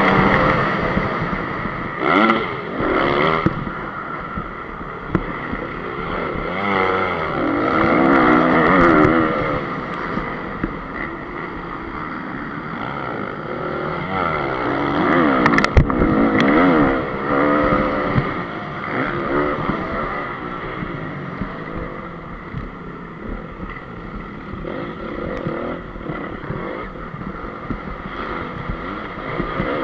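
2014 Honda CRF250's single-cylinder four-stroke engine revving up and down as it is ridden hard through a motocross track, heard close up from the rider's helmet. A few sharp knocks come through, the strongest about halfway through.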